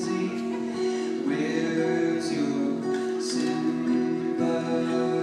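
Live band music: a song with singing over guitar.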